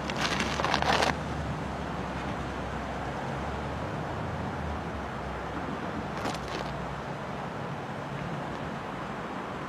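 Low, steady engine rumble of distant CN diesel freight locomotives, with a short, loud rush of noise in the first second and a fainter one a little after six seconds.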